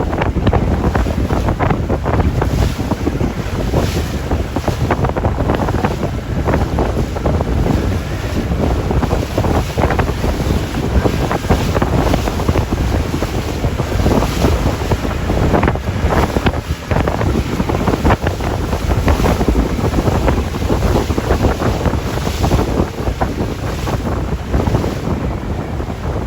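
Wind buffeting the microphone in loud, gusty rushes, over the wash of waves and sea water.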